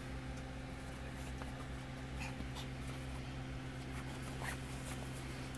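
Small dog playing on a bed, mouthing a hand: faint scratching and rustling of the bedding, a few soft ticks, over a steady low hum.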